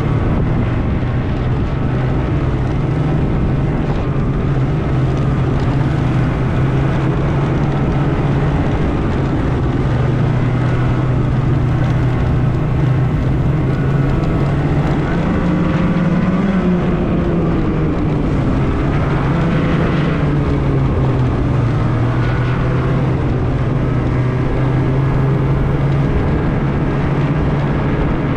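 Snowmobile engine running steadily, its pitch climbing briefly a couple of times as it speeds up, about halfway through and again a few seconds later.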